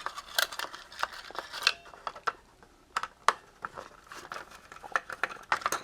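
Scattered sharp clicks and taps of a small screwdriver taking screws out of a plastic code-reader housing, with a quieter stretch in the middle.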